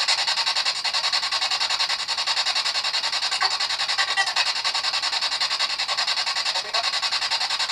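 Paranormal spirit box sweeping rapidly through radio stations: a steady hiss of static chopped into an even pulse about seven or eight times a second, with a few faint blips of broadcast sound caught in the sweep.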